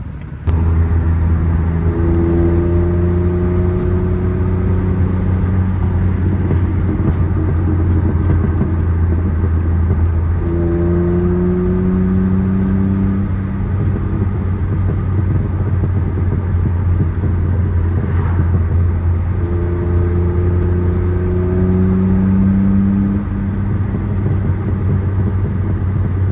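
A car driving: a steady low drone of engine and road noise, with the engine's pitch rising slowly three times as the car accelerates.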